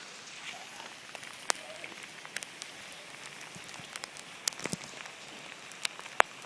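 Heavy rain falling steadily, with scattered sharp taps of single drops landing close by, about five in all.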